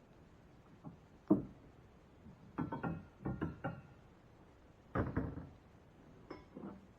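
A series of knocks and clunks from hard objects being handled and set down, each with a short ringing tone, in several separate groups.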